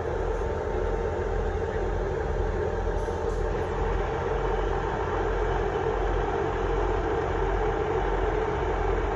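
Class 158 diesel multiple unit standing at the platform with its underfloor diesel engines idling: a steady low rumble and hum.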